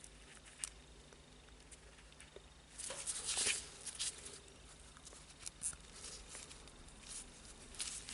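Faint handling noises: scattered small clicks and a brief scratchy rustle about three seconds in, from fitting motor wires and plastic parts into an angle grinder's housing by hand.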